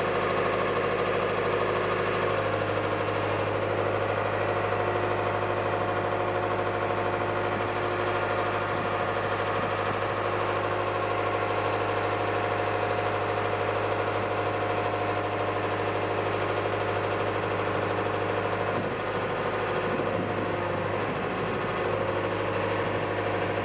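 Truck diesel engine running steadily to drive the hydraulics of a truck-mounted loader crane during a lift, with a shift in its tone about two seconds in.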